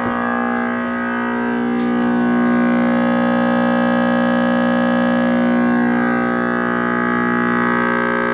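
RCA Victor X551 AA5 tube radio's speaker giving a loud, steady hum with many overtones, with faint tones sliding up and down in pitch, instead of reception. The owner traces this to a wiring fault: the output tube was tied through a resistor to the mains (hot) side at the power switch, coupling the rectifier's input to the radio's output.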